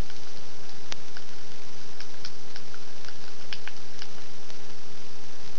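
Small, irregular clicks of a flip phone's keypad buttons being pressed, about a dozen, over a steady background hiss.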